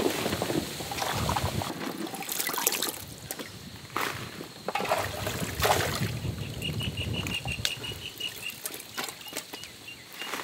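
Handfuls of wet, freshly washed okra pods being lifted and dropped onto a heap on a steel table, rustling and knocking together in irregular bursts.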